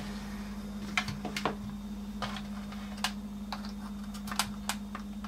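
Irregular small plastic clicks and taps, about eight or nine of them, as fingers handle and press at the plastic case of an iPod dock speaker, checking whether a panel is clipped or glued. A steady low hum runs underneath.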